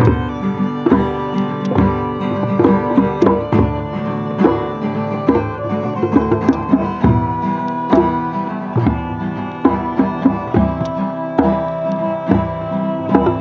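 Hurdy-gurdy playing a melody over its steady drone, with two djembes beating a dense hand-drum rhythm and an acoustic guitar playing along: an improvised folk jam.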